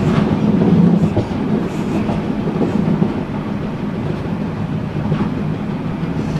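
A train running at speed on straight track, heard from the cab: a steady low rumble with a few faint wheel clicks.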